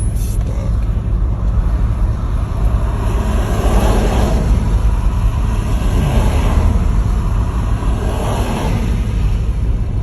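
Roar of a large tornado and its winds: a deep, steady rumble with wind buffeting the microphone. The noise swells in gusts about four, six and a half and eight and a half seconds in.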